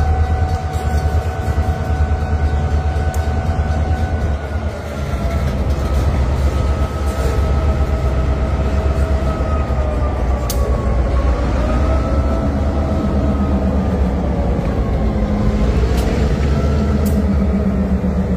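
Two EMD GP38-series diesel-electric locomotives, NBSR GP38-3 2319 and GMTX GP38-2 2233, passing at close range behind a boxcar. Their diesel engines give a deep, steady rumble that grows as they come alongside, with wheels running on the rails and a high whine that wavers up and down. A few sharp clicks come near the end.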